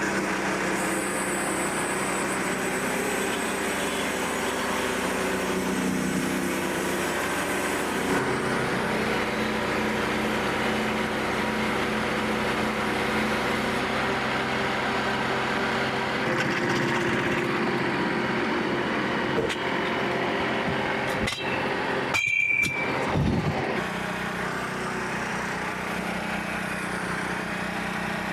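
Frontier OS27 portable bandsaw mill running: its small gas engine and band blade run steadily, with a change in the sound about eight seconds in and a brief break a little after twenty seconds.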